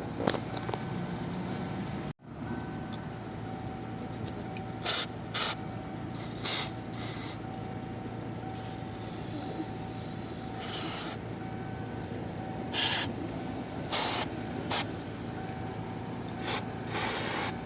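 Astrokhim aerosol can spraying in short hissing bursts, with one longer spray of about two seconds midway, aimed at a squeaking car door. The spray comes out at very strong pressure.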